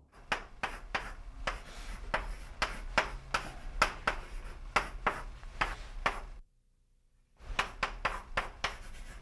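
Chalk tapping and scraping on a chalkboard as words are written, in quick strokes about three a second. The strokes stop for about a second, two thirds of the way through, then start again.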